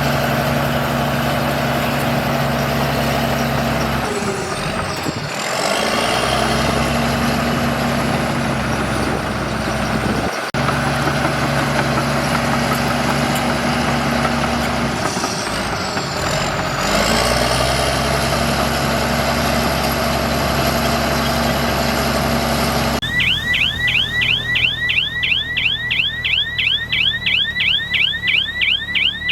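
Bulldozer's diesel engine running steadily, its pitch and a high whine dipping and recovering twice under load. Near the end the engine falls away and a high chirp, repeating about five times a second, takes over.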